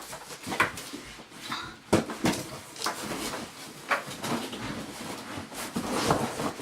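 Cardboard box and packaging being handled, with scattered rustles and short knocks; the sharpest knocks come about two seconds in and again about four seconds in.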